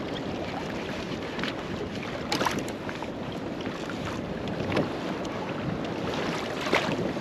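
Steady wind and water noise on a small boat, with a few light knocks and scrapes: one about two and a half seconds in, one near the middle and one near the end.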